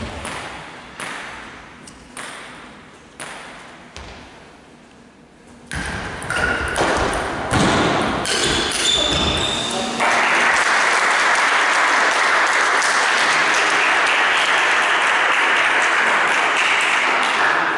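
Ping pong ball clicking against the table about once a second, then a quick rally of ball strikes on bats and table. About ten seconds in, a steady spell of audience applause takes over and runs for several seconds.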